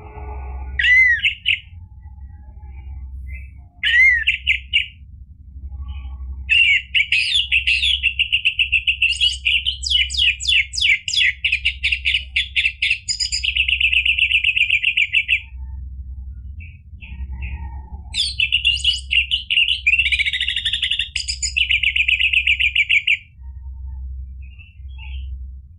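Orange-headed thrush singing. Two short phrases open it, then two long bouts of fast repeated high notes, each several seconds long.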